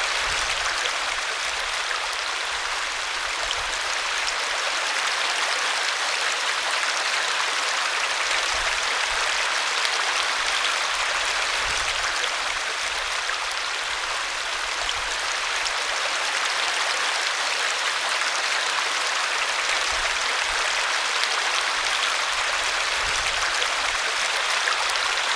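Forest stream running over rocks: a steady, even rush and splash of water.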